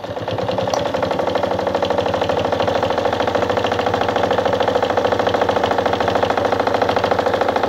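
Vintage Anker RZ sewing machine running at a steady speed, its needle going up and down in a rapid, even rhythm as it sews a straight stitch at a short stitch length.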